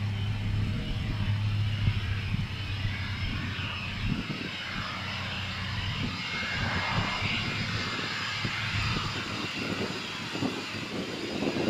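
Soko G-2 Galeb's single Rolls-Royce Viper turbojet running at low power as the jet rolls out after touchdown, with a thin whine showing around the middle.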